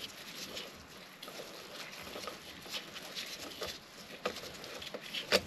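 Hand thread tap being turned in a tap wrench through a brake-disc bolt hole in a motorcycle wheel hub: faint, irregular metallic scraping and clicks as it cleans paint, swarf and old thread locker out of the threads, with one sharper click near the end.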